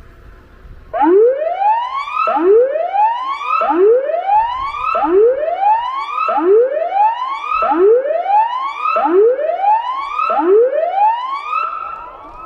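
Tsunami warning siren sounding its alert tone during a system test: a series of about eight rising sweeps, each climbing for a little over a second and then dropping back sharply. It starts about a second in and tails off near the end.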